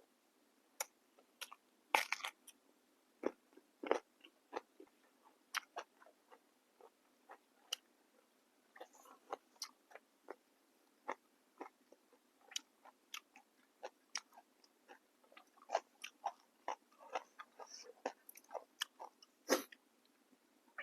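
A person biting and chewing crunchy fresh raw vegetables close to the microphone: irregular crisp crunches and mouth clicks, with sharper bites about two and four seconds in and another near the end.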